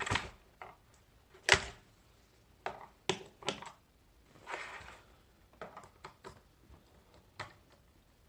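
Irregular clicks and knocks of a semi-mechanical keyboard's plastic parts being handled and fitted back together, with one sharper knock about a second and a half in and a short scrape a little before the five-second mark.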